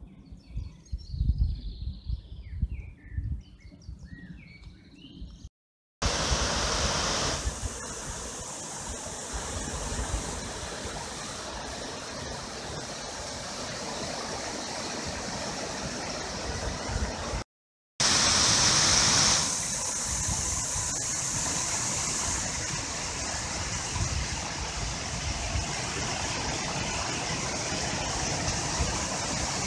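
Small birds chirping, with low wind gusts on the microphone, for the first few seconds. Then a steady rush of a small waterfall splashing into a stony pool, broken once by a brief dropout.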